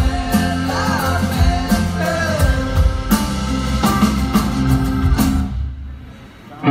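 Live rock band playing, with drums and acoustic and electric guitars. About five and a half seconds in the band stops and the sound dies away.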